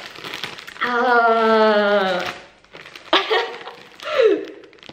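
A woman's drawn-out excited "ooh", held for about a second and a half and sliding slightly down in pitch, then shorter excited vocal sounds. A clear plastic zip bag crinkles as it is handled.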